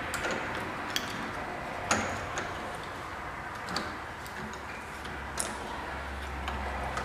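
A few separate light clicks and knocks of metal deadbolt lock parts being handled and fitted into a door.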